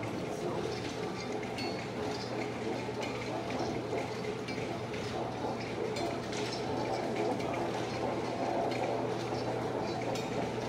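Several steel balls rolling around a smooth funnel-shaped surface, a steady rolling rumble with faint clicks, over a constant low hum.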